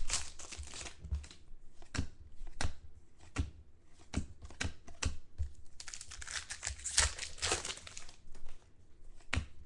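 Crinkling and tearing of 2013 Contenders football card pack wrappers being opened and handled, as a string of sharp clicks and rustles with a longer stretch of crinkling about six to eight seconds in.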